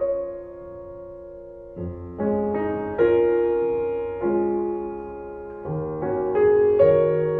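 Slow solo piano music: sustained chords struck every second or so and left to ring and fade.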